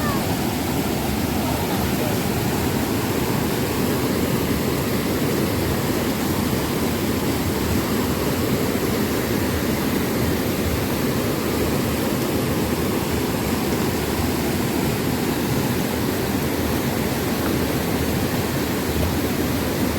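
Jungle river rushing over rocks: a loud, steady roar of flowing water.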